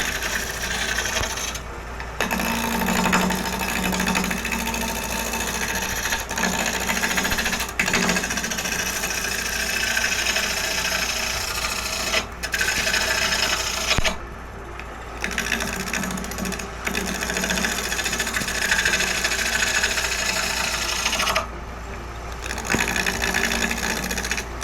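Wood lathe running while a turning gouge cuts a spinning lignum vitae bowl blank: a steady shearing hiss of the tool on the very hard wood over the lathe's hum. The cut breaks off briefly as the tool lifts, about two seconds in, around fourteen seconds and around twenty-two seconds.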